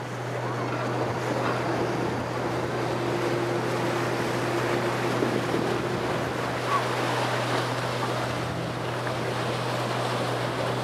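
Steady rushing noise over a constant low hum.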